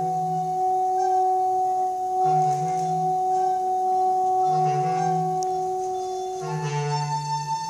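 Contemporary chamber music for woodwinds and electronics: two long, steady tones are held while a short low note sounds four times, about two seconds apart. Near the end the held chord changes to a new, higher note.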